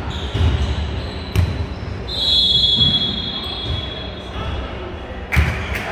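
Basketball being dribbled, a run of low thumps on the court, with a high steady squeal lasting about a second starting around two seconds in.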